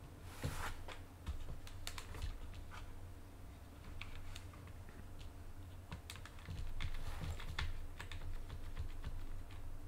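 Computer keyboard keys clicking in irregular, scattered strokes over a steady low hum, with a short hissing rush about half a second in and another around seven seconds in.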